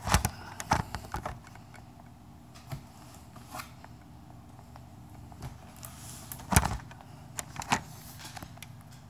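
Handling noise from a cardboard toy box held in the hands: scattered knocks and rubs, the loudest just after the start and about six and a half seconds in, over a faint steady low hum.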